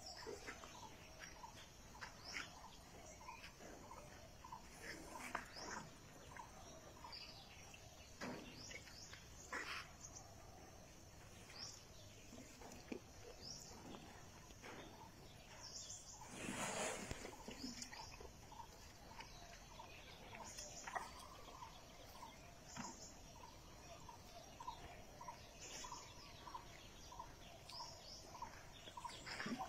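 Faint birdsong: many short high chirps and sweeps, with a steady series of short pips about two a second through the second half. Scattered light clicks, and a brief rustle about halfway.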